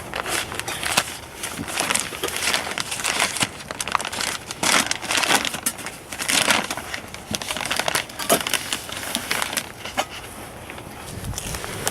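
Plastic food packaging crinkling and rustling in irregular handfuls as it is handled and opened.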